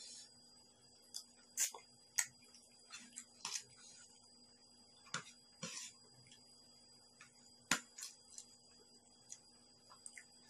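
Eating sounds: sparse, faint clicks and taps of a metal spoon on a plastic plate and of stir-fried clam shells being handled, with a few sharper clicks and chewing mouth sounds.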